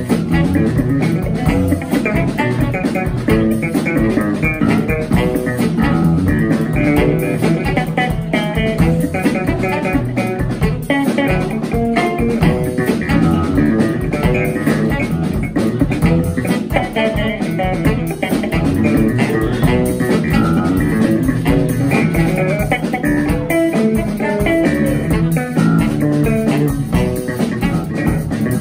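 Live small-group jazz: an electric bass plays a busy, moving line over a drum kit.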